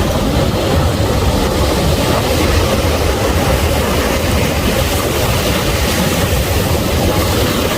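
Rough sea surf: a steady, loud rumbling wash of noise with no breaks.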